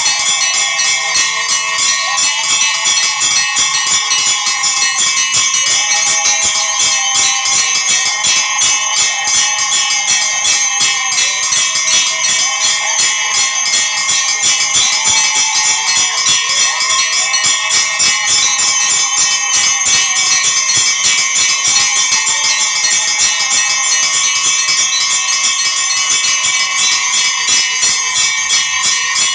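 Temple bells ringing nonstop with rapid, dense strikes, several ringing tones sounding at once. Beneath them a lower wavering tone swoops up and down, repeating every couple of seconds.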